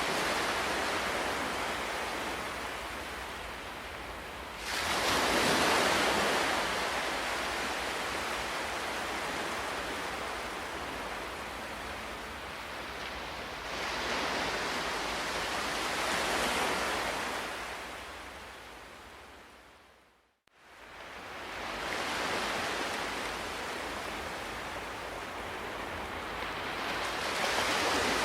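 Ocean waves breaking and washing ashore, each surge swelling and ebbing over several seconds. About two-thirds of the way through, the sound fades out to near silence and then swells back in.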